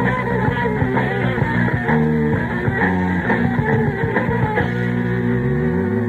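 Rock band playing, with guitar to the fore; a note slides upward near the end.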